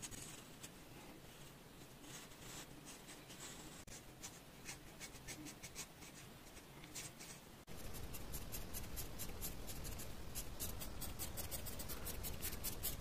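Graphite pencil scratching on drawing paper: scattered light sketching strokes, then, after a sudden jump in loudness about two-thirds of the way in, a louder run of quick, evenly repeated back-and-forth hatching strokes.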